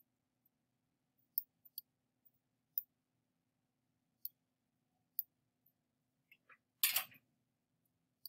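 Computer mouse clicks: a handful of short, sparse clicks while a layer is being rotated in Photoshop. About seven seconds in there is one louder, brief rustling noise.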